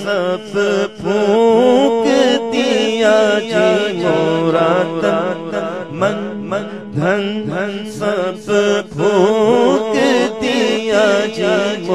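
A man sings a devotional Urdu kalam into a microphone, holding long, wavering, ornamented melodic phrases over a steady low hum.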